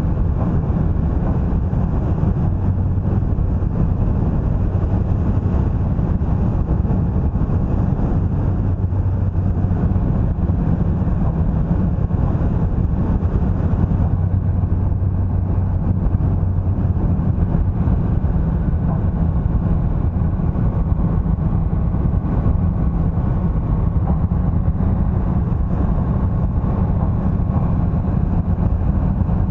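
Vehicle driving at a steady pace: continuous low engine and tyre noise, unchanging, with no sudden events.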